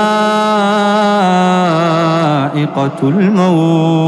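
A man reciting the Quran in melodic tajwid style, drawing out a long vowel on a held pitch. The voice steps a little lower about a second in, wavers through a short ornamented turn near the three-second mark, then settles into another held note.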